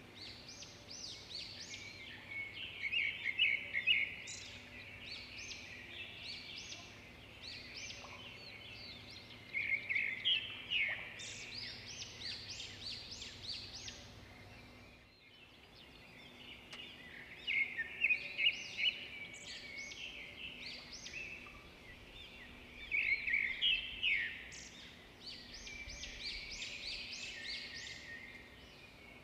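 Small birds chirping and twittering in quick, repeated bursts of high calls over a faint steady hum. The sound breaks off briefly about halfway through.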